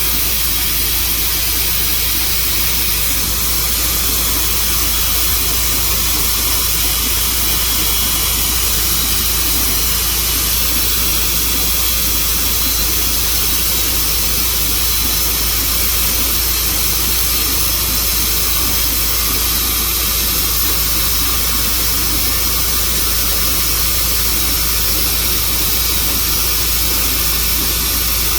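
Portable band sawmill running steadily through a slow cut in dry elm with a damaged, dulled blade.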